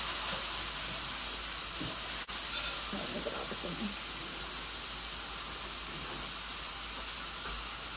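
Onions and mushrooms frying in oil in a pan: a steady sizzling hiss, with a momentary dropout about two seconds in.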